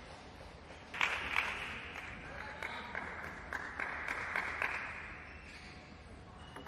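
Scattered clapping from a small audience, beginning suddenly about a second in with a few sharp individual claps, then thinning out.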